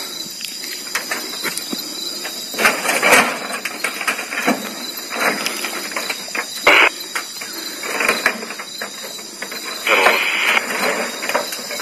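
Insects droning steadily in high, even tones, over irregular bursts of rustling noise with small clicks.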